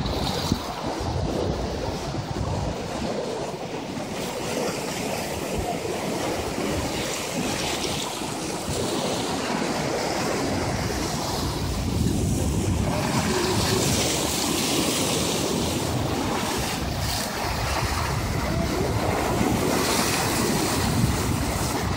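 Sea waves washing and breaking over rocks along a rocky shore, a continuous surf hiss that swells now and then, with wind buffeting the microphone.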